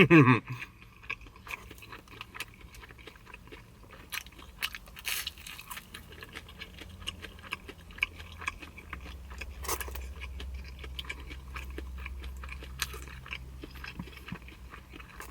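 Close-up chewing of pan pizza: many small wet mouth clicks and crunches of crust. A low steady hum comes in about six seconds in.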